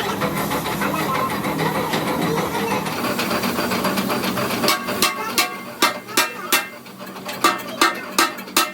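An engine running steadily, cutting out about five seconds in, followed by a run of sharp knocks, roughly one to two a second.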